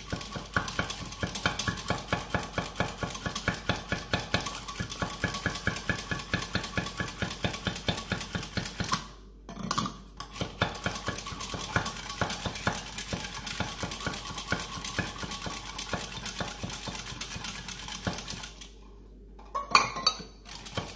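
Metal whisk beating a thin, oily liquid in a small stainless steel pot, a fast, steady clinking against the metal. It stops briefly twice, near the middle and near the end. The whisking is to blend the floating oil into the serum.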